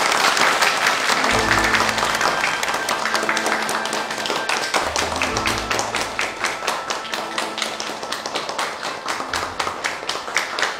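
A roomful of people applauding, the dense clapping thinning into scattered claps toward the end, with background music underneath.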